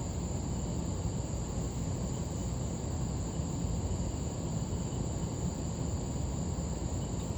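A 1985 Hunter Original ceiling fan running steadily on high: an even rush of air and low motor hum from its 3-speed motor and four wood blades. A thin, steady high-pitched whine runs through it.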